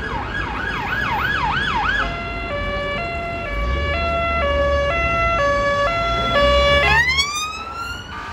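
Emergency vehicle siren, loud, on a fast yelp that switches about two seconds in to the UK two-tone, two notes alternating about every half second. Near the end a siren winds up in one rising wail. A low rumble of engine and traffic runs underneath.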